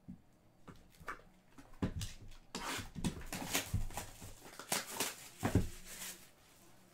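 Plastic wrapper of a trading-card pack crinkling and tearing as it is opened by hand, with a few dull knocks mixed in.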